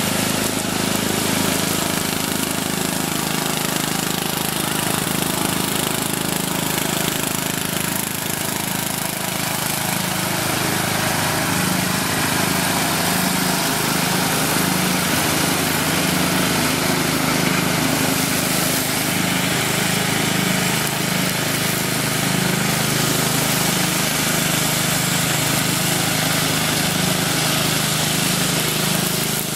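Engine of a John Deere Sabre riding lawn mower running steadily as the mower drives across the lawn.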